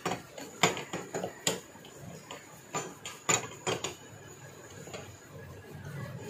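Steel tube box spanner with a tommy bar clinking against the nuts and cast end cover of a truck starter motor as it is fitted and turned: about seven sharp metallic clicks in the first four seconds, then softer handling as the bar is spun.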